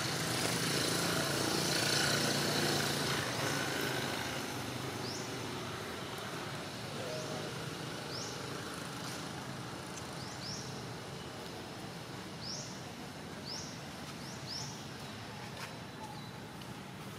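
Outdoor tree-canopy ambience: a steady hiss with a low rumble, slightly louder at the start, and short, high, rising chirps of a small bird, singly or in quick pairs, from about five seconds in.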